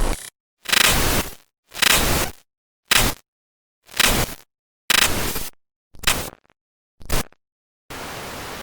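A run of short digital glitch sound effects played one after another: about eight separate bursts of crackling, static-like noise, each under a second long, with clean silence between them. Near the end comes a steadier burst of flat static.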